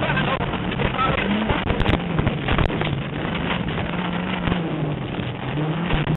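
Volkswagen Gol rally car at speed on a gravel stage, heard from inside the cabin: the engine runs hard, its pitch rising and falling with throttle and gear changes, over the rumble of tyres and stones knocking against the underbody, with wind noise on the microphone.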